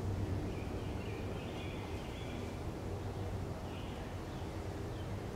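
Outdoor ambience: a steady low rumble with faint bird chirps twice, once about one and a half seconds in and again near four seconds.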